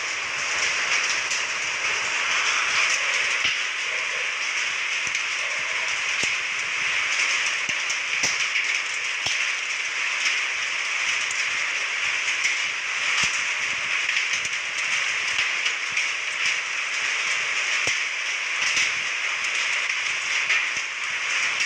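Rain laden with volcanic sand falling and pattering on surfaces: a steady, dense hiss with many small ticks.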